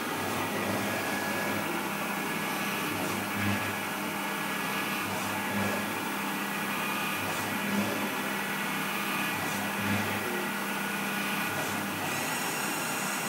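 CNC milling machine cutting a metal block with an end mill: a steady hum of the spindle and cutting noise, with a few brief louder bites as the cutter works. A higher whine joins near the end.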